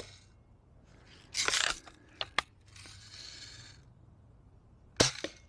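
Daisy Red Ryder lever-action BB gun being cocked and fired: a short rasping lever stroke about a second and a half in, two sharp clicks a second later, then a single sharp crack of a shot near the end.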